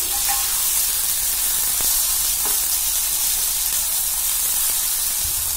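Chopped tomatoes, slit green chillies and onions sizzling in hot oil in a kadai, a steady hiss with a few light knocks of a perforated metal spatula stirring them.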